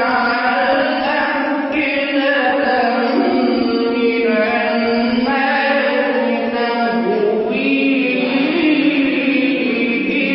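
A young man's unaccompanied voice reciting the Quran in the melodic chanted style (tajweed), drawing out long held notes that glide from pitch to pitch, inside a stone fortress.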